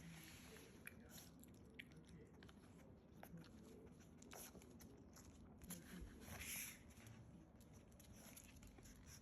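Faint, scattered small clicks and mouth sounds of a pug puppy chewing, over near silence.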